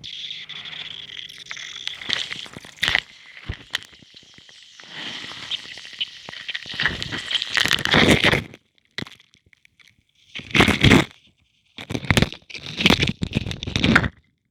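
Crunchy balls crumbling in water: a steady crackling that builds over the first eight seconds, then three short, loud bursts of crunching near the end.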